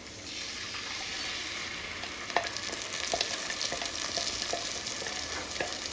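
A watery coriander and green chili paste sizzling as it hits hot oil with fried onion and whole spices in a pot, while a spoon stirs it and clicks against the pot now and then. The sizzle starts just after the beginning and holds steady.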